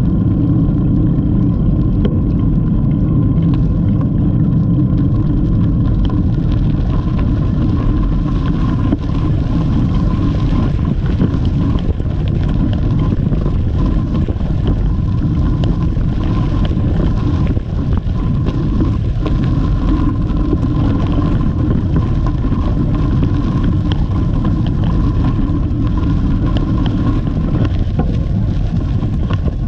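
Steady wind rumble buffeting the microphone of a camera riding on a moving bicycle, mixed with the bike's tyres rolling over a sandy gravel path and small scattered clicks. A thin steady tone runs through it.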